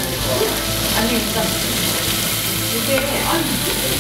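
Pork belly slices sizzling on a hot griddle beside frying kimchi and garlic: a steady, dense frying hiss.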